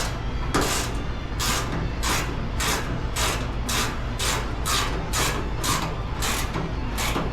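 Hand tool driving a stubborn screw: short scraping strokes about twice a second, over a steady low hum.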